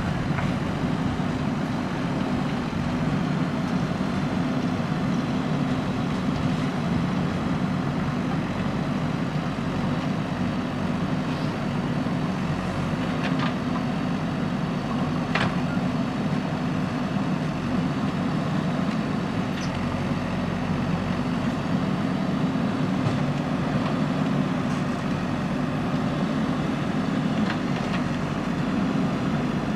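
JCB backhoe loader's diesel engine running steadily under load, with a couple of faint metallic clinks about halfway through.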